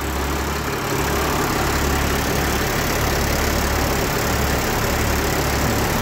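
Blue Bird school bus engine idling with a steady low rumble.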